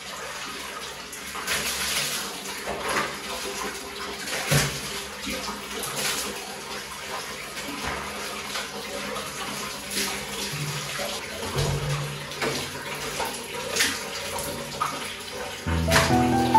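Water running steadily from a tap, with scattered knocks and clatter over it. Soft music plays underneath, and louder piano music comes in near the end.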